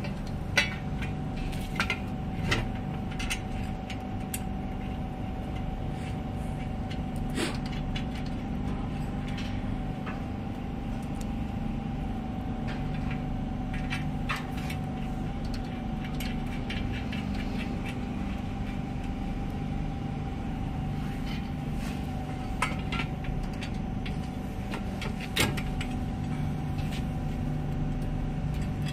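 A steady machine hum with a constant whine, and now and then a sharp metal click or clink as bolts and parts are fitted to a steel stand frame.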